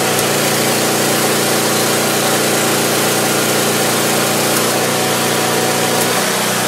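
Small engine of a portable generator running steadily at constant speed. It runs about 100 rpm short of the 3750 rpm it should hold, so its output frequency is just under 60 Hz.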